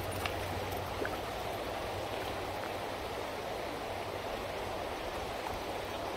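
Swift river current rushing steadily past a gravel bank, with a couple of faint clicks in the first second.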